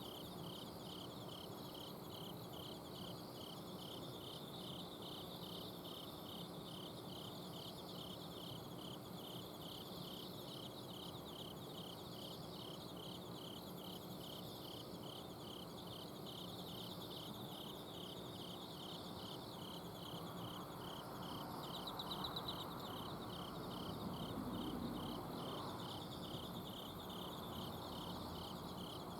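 Autumn crickets chirping at night: one cricket repeating an even, high chirp about twice a second over fainter trilling from other insects. Underneath is a steady low hum from an air-conditioner outdoor unit, and a broader noise swells up from about two thirds of the way in, then fades.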